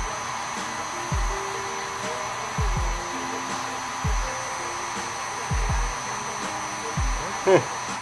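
Heat gun blowing hot air steadily, heating the solder under a TV board's system-on-chip. Under it runs background music with a deep kick drum about every second and a half, and there is a brief pitched chirp about seven and a half seconds in.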